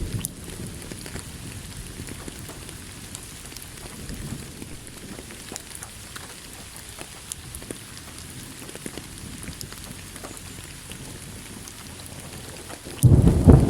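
Steady rain falling, with scattered sharp drop ticks. Near the end, thunder breaks in suddenly with a loud, low rumble.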